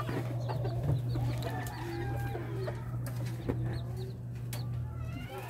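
Bantam chickens clucking, with many short high calls, over a steady low hum and a few short knocks.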